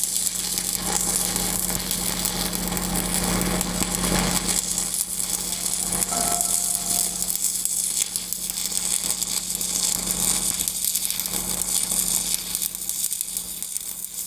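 Stick-welding arc crackling and sizzling steadily as a 3/16-inch electrode runs a downhill hot pass on a pipe root, with a steady electrical hum underneath.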